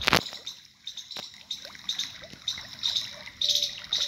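Irrigation water trickling, with a sharp click at the very start and scattered smaller clicks and short high chirping notes.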